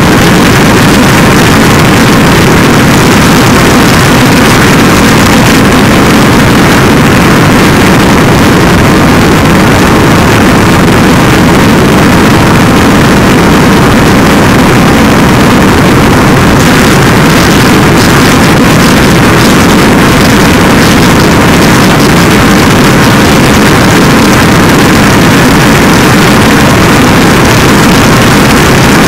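Harsh noise wall: a dense, unbroken wall of distorted electronic noise, pushed to full loudness, spread from deep bass to the highest hiss and barely changing over the whole stretch.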